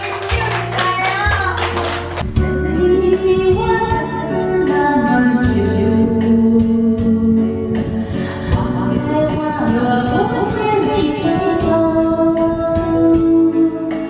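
Karaoke backing track playing a Mandarin pop song with singing over it, and hands clapping during the first two seconds.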